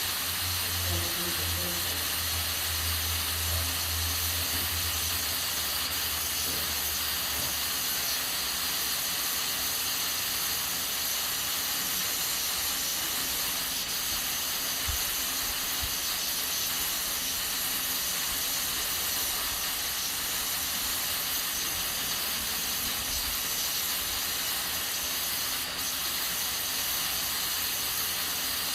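Aluminium pressure cooker hissing steadily as steam escapes from its valve while it cooks beans. A low hum underneath stops about eight seconds in.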